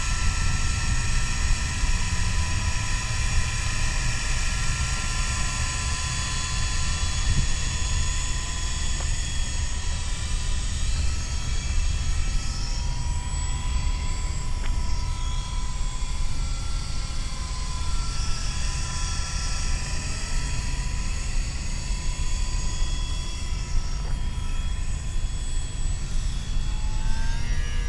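MJX F45 RC helicopter's stock electric motor and rotor whining steadily, several high tones sliding up and down in pitch as the throttle changes, with a brief rise near the end. A steady low rumble runs underneath.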